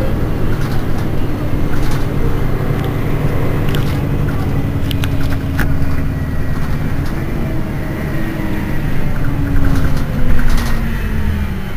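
Mercedes-Benz Citaro city bus engine running under way. Its low engine note drifts down, rises briefly about seven seconds in, then sinks again, with a few short clicks around the middle.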